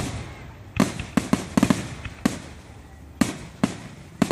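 Aerial fireworks bursting in a finale: a string of sharp bangs at irregular intervals, some two or three in quick succession, each trailing off in a rumbling echo.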